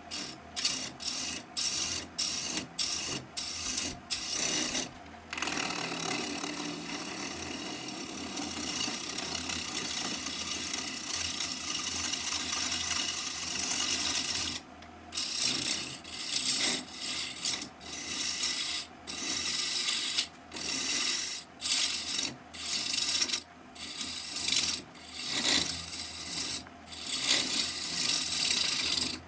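Turning tool cutting a spinning red oak blank on a wood lathe: a run of short cuts broken by brief pauses as the tool comes off the wood, then one long unbroken cut from about five to fourteen seconds in, then short cuts again.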